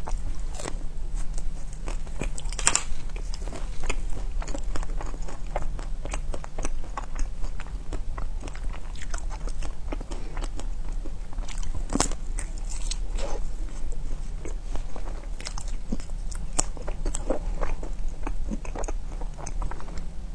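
Close-miked ASMR biting and chewing of frozen ice cream bars on sticks: a run of crunchy, crackling bites and chews, the sharpest about 3 and 12 seconds in, over a steady low hum.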